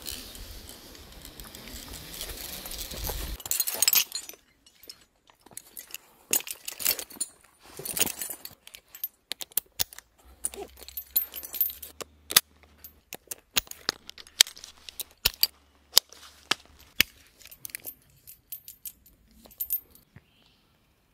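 A few seconds of steady hiss, then metal climbing hardware being handled: carabiners and mechanical rope devices clinking and clicking in many sharp, irregular knocks.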